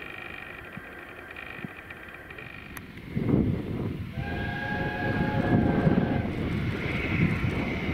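Steam locomotive and train passing: after about three seconds of faint steady high tones, the train arrives loud with a low, pulsing rumble. Its steam whistle sounds for about two seconds in the middle.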